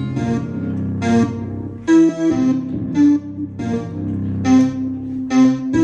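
Piano-sounding keyboard playing a melody of struck notes, each ringing briefly, over a held low note.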